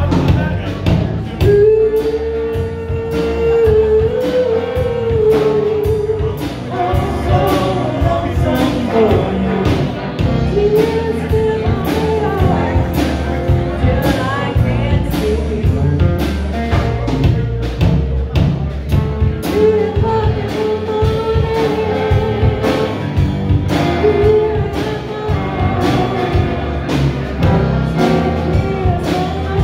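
A live band plays a song: a woman sings lead in long, held notes over electric guitars, keyboard and a steady drum beat, through a small stage PA.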